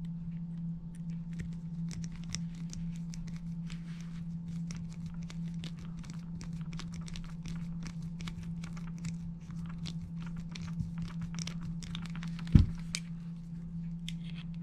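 Screwdriver turning the small retainer-plate screw into a Springfield Trapdoor rifle's breech block: faint metal ticks and scrapes over a steady low hum, with one loud knock about twelve and a half seconds in.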